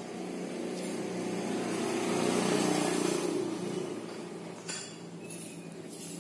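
A motor vehicle passing by: a low engine hum that swells to a peak about halfway through and then fades, with a light click near the end.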